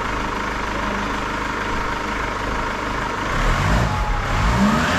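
Chevrolet Orlando's turbodiesel engine idling, then revved briefly twice near the end. The turbocharger's whine rises and falls with the revs.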